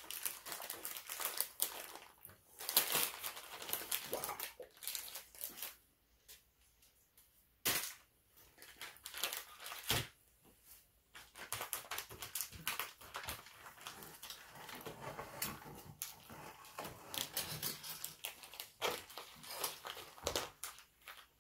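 Ration packaging rustling and crinkling as it is handled, with scattered light clicks and knocks. Two sharper knocks come about eight and ten seconds in.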